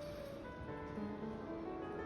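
Soft background music: a slow melody of held notes, with a faint steady low hum underneath.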